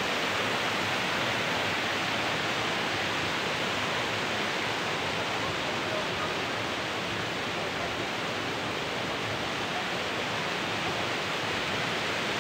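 A waterfall cascade rushing over rock: a steady, even rush of water.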